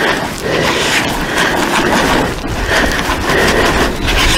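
Damp fishing groundbait being worked by hand, a repeated rubbing and rustling of the crumbly mix.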